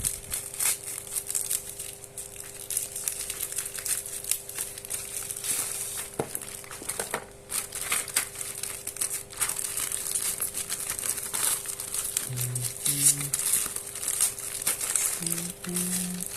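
Packaging crinkling and rustling as a product box is unwrapped and its contents handled by hand, in a run of irregular crackles.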